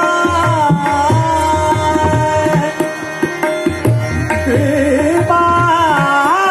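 Hindustani classical vocal in Raag Hansadhwani: a male singer holds and bends long melodic notes over a harmonium, with tabla strokes and the deep tabla bass drum keeping the rhythm. The voice glides through a sharp turn about half a second in and again near the end.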